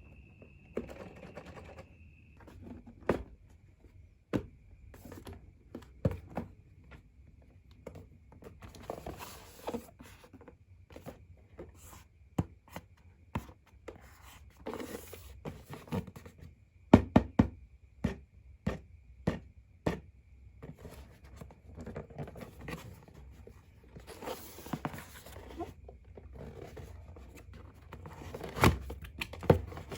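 Hands handling plastic RC toy parts and packaging: scattered knocks and clicks, with a quick run of sharper clicks around the middle, and several short rustles.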